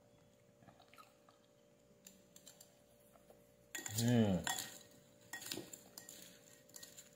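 A plastic spoon and fork tossing a dried baby shrimp and tomato salad in a ceramic bowl: faint scrapes and light clicks of the utensils against the bowl. About four seconds in, a short wordless sound from a man's voice.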